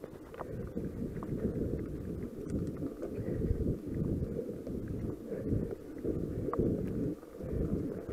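Mountain bike rolling fast down a dirt forest trail: a steady, surging rumble of wind buffeting the camera microphone mixed with tyre noise on the trail, with a few faint clicks and rattles from the bike.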